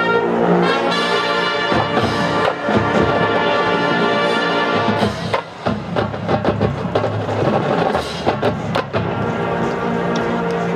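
Marching band playing: the brass section holds sustained chords while the drums and percussion strike a run of loud accented hits from about two to nine seconds in.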